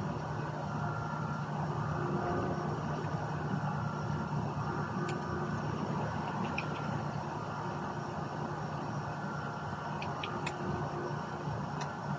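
A steady low mechanical hum like a running engine or motor, with a few faint light clicks around the middle and near the end.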